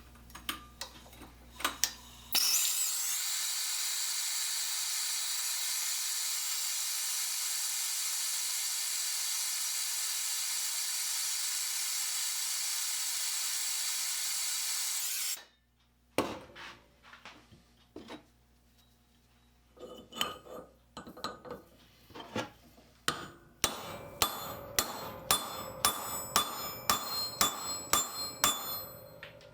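A steady power-tool whir for about thirteen seconds that cuts off sharply, then light knocks on metal. These turn into a run of hammer taps, about two a second, near the end, as a small steel rivet is worked.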